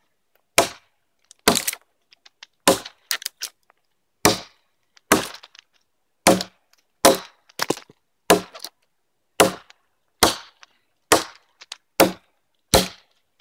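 Light pack axe (a hatchet head on a 19.5-inch handle) chopping into a felled tree trunk. It makes a steady series of sharp wooden strikes, about one a second, with a short pause between blows, as it bucks the log in half.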